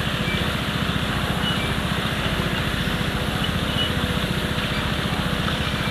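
Small engine of a motor pump running steadily, with a rapid, even low pulse, supplying water through a hose to a gold-mining sluice.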